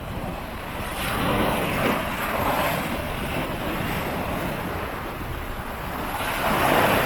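Waves washing onto the beach, with wind buffeting the microphone; the loudest surge comes near the end as a wave breaks.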